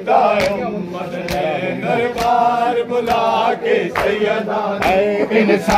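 Men chanting a Punjabi noha together, with sharp rhythmic chest-beating slaps (matam) about once a second marking the beat. A steady low hum runs underneath.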